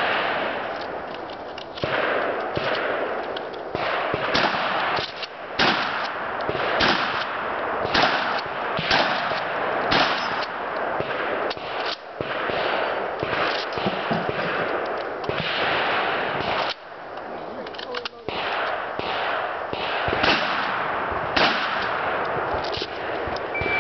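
A shooter's string of gunshots in a 3-gun match stage, about one shot a second, each trailing an echo, with a short break about seventeen seconds in.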